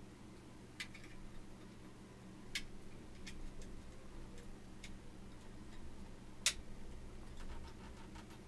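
Sparse, irregular light clicks and taps from hands handling things at a desk, a second or more apart, one sharper click about two-thirds of the way through, over a low steady hum.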